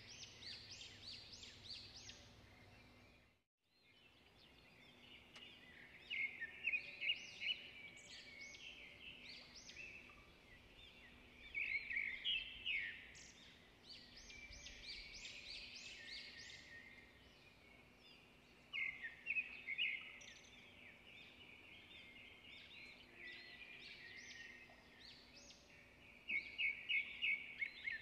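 Small birds chirping, in clusters of quick repeated chirps that come every several seconds, over a faint steady hum. The sound drops out for a moment about three and a half seconds in.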